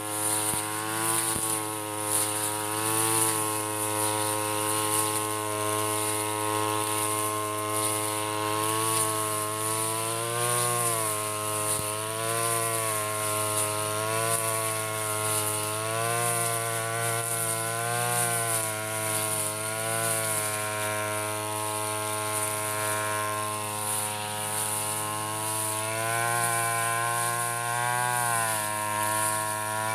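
Backpack brush cutter's small petrol engine running at high speed while cutting grass. Its pitch dips slightly and recovers every couple of seconds as the cutting head takes the load of the grass on each swing.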